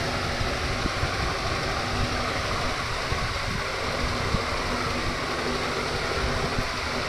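Washing machine running: a steady rumble with a rushing, water-like noise and a faint hum.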